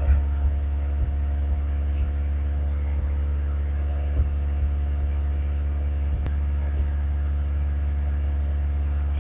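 Steady low electrical hum, like mains hum picked up by the microphone, with a few faint ticks.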